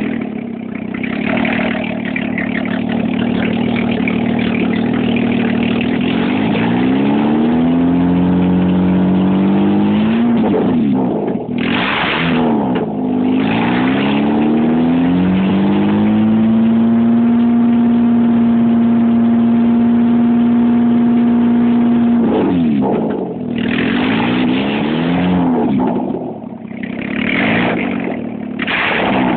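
Volvo 960 engine running steadily, then revved up and down several times, held at a steady raised speed for several seconds in the middle, and blipped in quick revs near the end.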